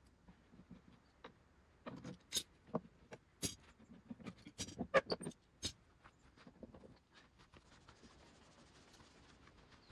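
Steel F-style bar clamps being unscrewed and pulled off a glued board panel and set down: a run of sharp metal clicks and clacks, thickest between about two and six seconds in.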